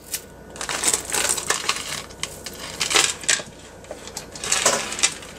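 Costume jewelry clinking and jangling as hands rummage through a plastic bag of metal chains, beads and pearls, with irregular clusters of small clicks and the bag's plastic crinkling.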